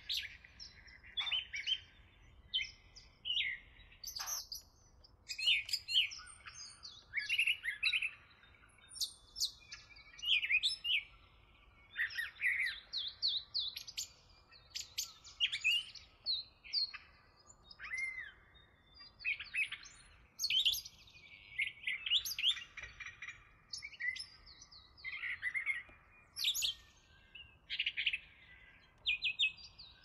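Songbirds chirping and singing: a near-continuous run of short, varied, high-pitched phrases with only brief gaps between them.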